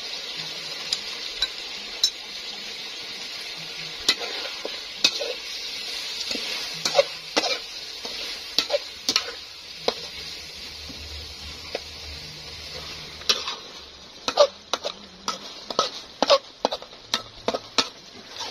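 Catfish pieces sizzling in sauce in a large steel wok while a metal spatula stirs them, scraping and clinking against the pan. The clinks come thick and fast over the last few seconds.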